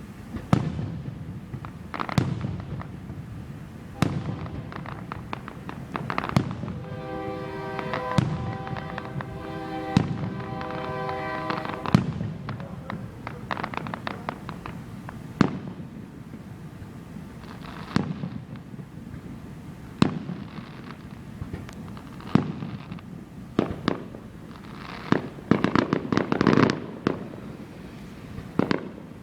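Aerial fireworks bursting, a sharp boom about every two seconds with a rolling echo after each, then a rapid run of crackling bursts near the end. Music plays along for a few seconds in the middle.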